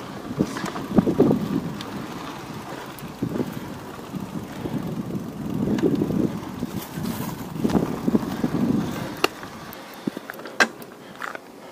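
Irregular rustling with scattered sharp clicks and knocks, picked up by a chest-mounted action camera's microphone as the wearer moves.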